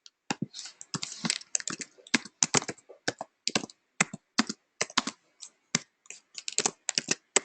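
Typing on a computer keyboard: sharp, irregular keystrokes, often several a second, as figures are keyed in for a calculation.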